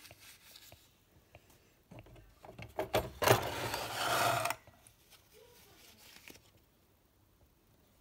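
The drip tray and metal grille of a Nespresso Lattissima Pro being handled and pulled out: a sharp knock about three seconds in, then over a second of plastic-and-metal scraping and rubbing that stops suddenly.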